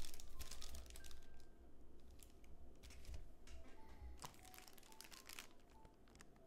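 Clear plastic bag holding resin miniature parts crinkling and rustling as it is handled and set down, with light clicks. It is loudest in the first second and grows sparser after.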